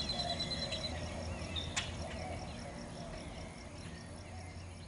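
Nature ambience of insects chirping in a steady, even pulse of about three a second, with faint wavering bird-like calls and a low hum, slowly fading. A single sharp click about two seconds in.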